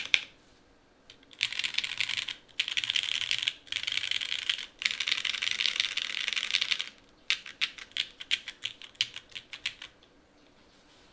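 Custom mechanical keyboard with an aluminium plate, lubed Cherry MX Black Hyperglide linear switches and GMK keycaps being typed on. After a short pause it is typed on in fast continuous runs broken by three brief gaps. Then it slows to separate keystrokes, which stop about ten seconds in.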